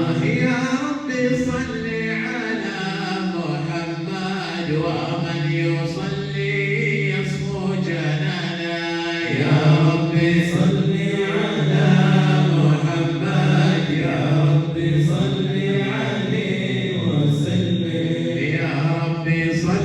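A group of voices chanting a Sufi devotional salawat in unison, drawing out long held notes.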